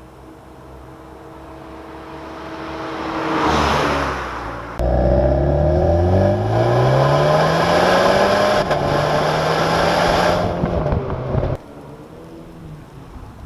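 MINI John Cooper Works turbocharged four-cylinder engine and exhaust. A steady engine hum gives way to a whoosh that swells and fades about four seconds in. Then, about five seconds in, a loud run starts suddenly: the revs climb, drop for a gear change, climb again, hold steady, and cut off abruptly near the end.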